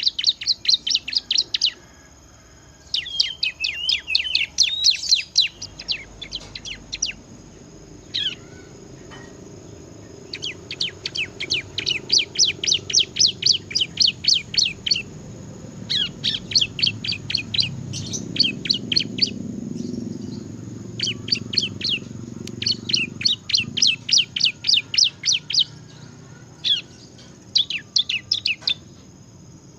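Bar-winged prinia (ciblek) singing hard in fast rattling trills of sharp, high notes, about seven a second, in several runs of one to five seconds with short pauses between them.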